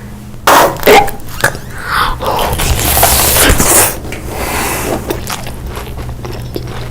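Close-miked eating sounds: a couple of sharp bites, then irregular chewing.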